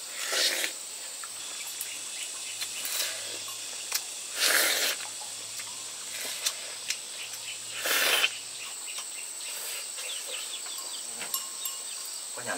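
Insects chirring in one steady high-pitched drone, with three short bursts of noise, each about half a second long.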